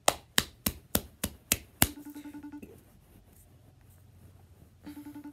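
Seven sharp hand strikes in quick succession, about three a second, then a phone's outgoing call tone pulsing briefly twice while the call rings unanswered.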